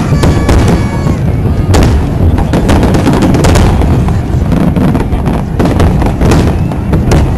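Fireworks display bursting in quick succession: a continuous low rumble of booms studded with sharp cracks.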